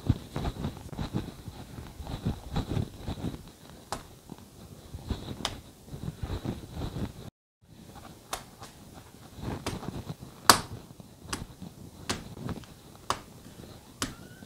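Hands working soft paratha dough on a countertop with dull, soft thuds, then, after a brief silence about halfway, a dough ball slapped between the palms in sharp claps, about two or three a second.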